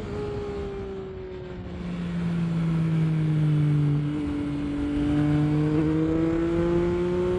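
Yamaha Tracer 9 GT's ECU-flashed three-cylinder engine running under way, with wind and road noise. The engine note eases off and sinks over the first few seconds, then climbs steadily through the second half as the bike gets back on the throttle.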